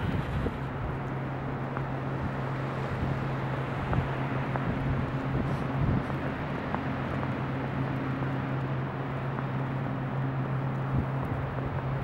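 Blizzard wind rushing across the microphone, over a steady low hum.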